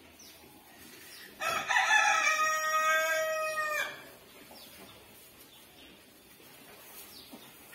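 A rooster crows once: a single long, loud call of about two and a half seconds, starting a little over a second in and holding a steady pitch before tailing off.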